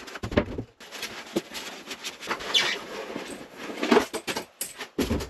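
Cardboard and foam packing rustling and scraping, with scattered knocks and clicks, as an electric outboard motor is lifted and handled out of its box.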